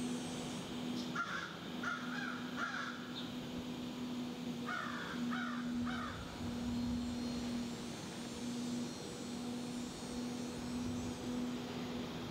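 Crows cawing in two runs of three caws, the first about a second in and the second around five seconds in, over a steady low hum.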